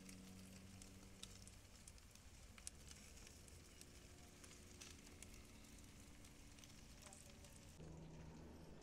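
Faint crackle of a wood fire under a jerk pan of chicken, with small pops scattered through it over a low steady hum.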